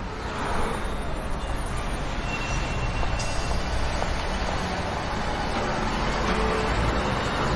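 Street traffic noise: a steady wash of passing road vehicles.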